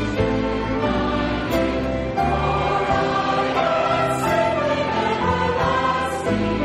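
Choir singing sacred music with instrumental accompaniment, in long held chords over a sustained bass.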